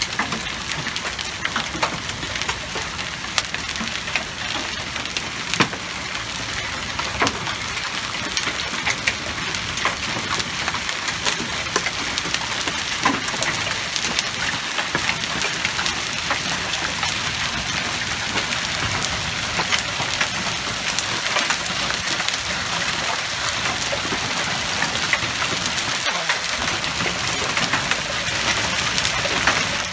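Hail mixed with rain falling on a brick paver driveway and shrubs: a steady hiss dense with small sharp ticks of hailstones striking. It grows slightly heavier toward the end.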